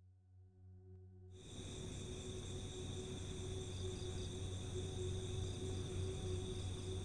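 Night-time chorus of crickets and other insects, a steady high-pitched trilling that cuts in abruptly about a second in over a low rumble. Before it, a low humming drone fades in.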